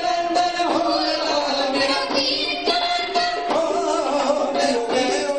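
Qawwali music: singing over harmonium and tabla, with a steady driving rhythm.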